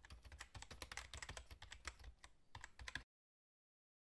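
Computer keyboard typing sound effect: rapid, irregular key clicks that cut off abruptly about three seconds in.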